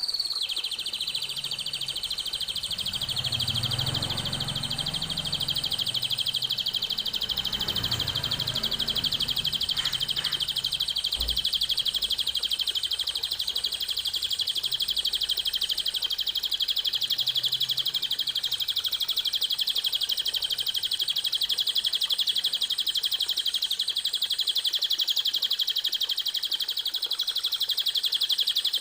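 Recorded songbird song: a rapid, high-pitched trill held without a break, played as tutor song for training caged songbirds.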